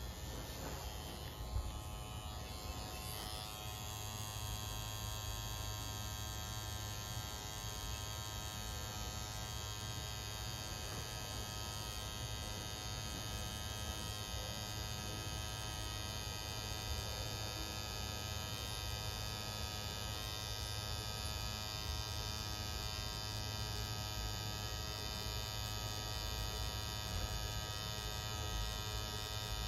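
Tattoo machine buzzing steadily while its needle works over the skin.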